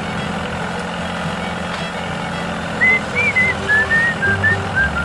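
A steady low vehicle-engine hum. About three seconds in, background music starts with a whistled melody over a pulsing bass line.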